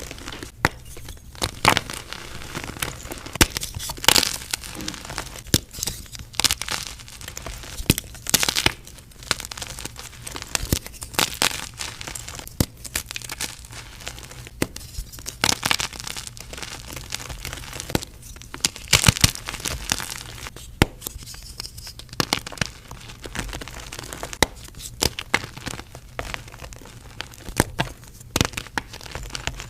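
Gym chalk being crushed and crumbled: a dense, irregular run of dry crunches and crackles with louder snaps every second or two.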